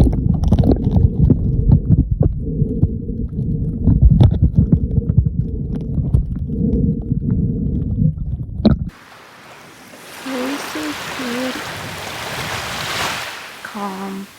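Muffled underwater sound from a camera held below the surface while snorkeling: low rumbling water movement with bubbly clicks. About nine seconds in it cuts off abruptly to open-air sound, a rushing hiss of water that swells and fades.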